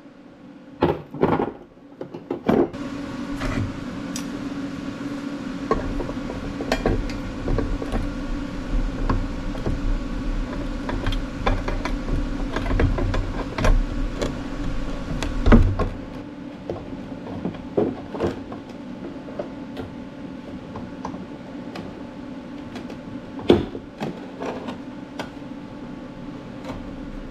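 Galvanized steel chain clinking and knocking in scattered sharp clanks as it is handled. Underneath is a steady machine hum that drops noticeably about sixteen seconds in.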